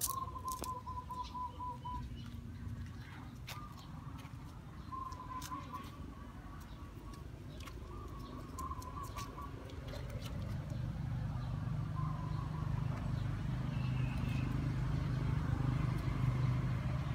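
A bird calling in short trilled phrases, several times, over a low hum that grows louder in the second half, with scattered light clicks.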